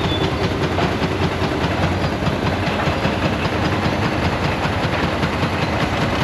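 Steady mechanical running noise with a fast, even clatter and a low hum, like a vehicle or machine under way.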